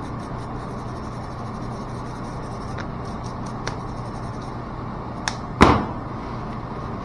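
Steady hum of boiler-room equipment, with a few light clicks of small valve parts being handled and one sharp clack a bit over halfway through.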